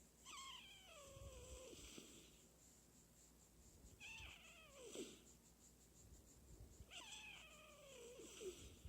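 Miniature pig snoring in its sleep: three faint, high, whistling snores, each sliding down in pitch, about three and a half seconds apart.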